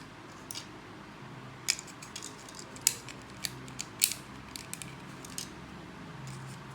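Plastic Lego pieces clicking as they are handled and pressed together, a dozen or so sharp irregular clicks, the loudest about three and four seconds in.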